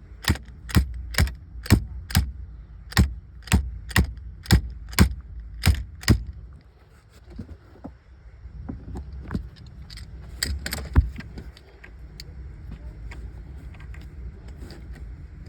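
Sharp metal clicks about two a second for roughly six seconds, then a few scattered clicks, from hand work fitting a battery kill switch onto the car battery's terminal.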